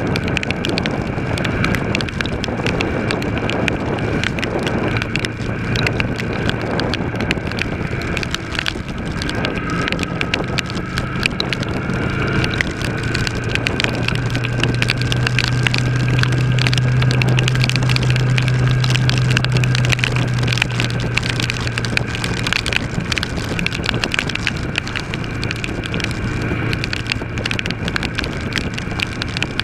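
Kawasaki ER-6's parallel-twin engine running at a steady cruise, its hum a little louder for several seconds in the middle. Wind rushes over the helmet microphone, with spray and crackle from riding through heavy rain on a flooded road.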